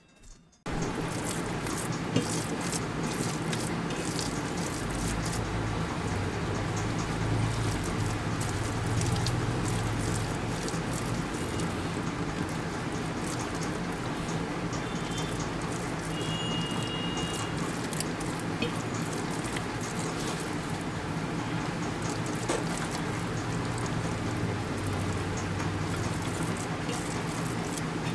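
Steady rain with dripping water: an even hiss full of scattered small drip clicks, starting suddenly about a second in.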